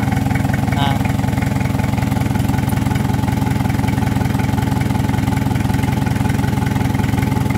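Isuzu C240 four-cylinder diesel engine running steadily at a constant low speed on a test stand.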